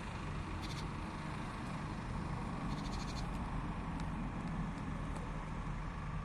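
Steady low outdoor hum like distant traffic, with a couple of brief high chirps of a small bird, about a second in and again about three seconds in.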